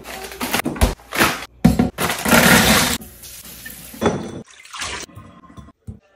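Running water from a kitchen sink tap, a hissing rush lasting about a second, among several short bursts of handling noise from shrimp, bowls and packaging.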